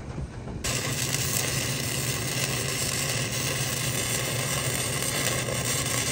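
Wire-feed welder arc crackling steadily as a bead is laid on the steel trailer tongue, starting about half a second in.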